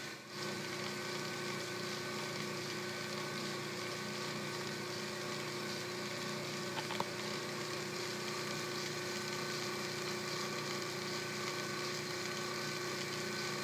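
Atlas 10D metal lathe running steadily, its electric motor and belt drive giving an even hum with several steady tones, the spindle turning at about 130 RPM on the lowest belt speed without back gear. One faint tick about halfway through.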